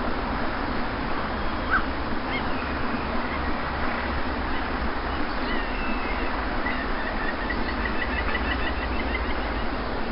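Steady wash of sea surf on a beach, with birds calling faintly over it: a few short chirps, then a quick run of repeated notes in the second half.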